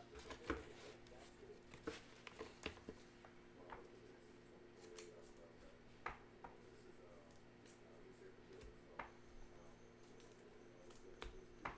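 Near silence over a steady low hum, broken by scattered light taps and clicks from trading cards being handled and set down, the loudest about half a second in.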